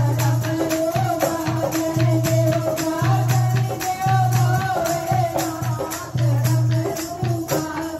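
Women singing a Hindi devotional bhajan into microphones, with hand clapping and light percussion keeping a steady beat.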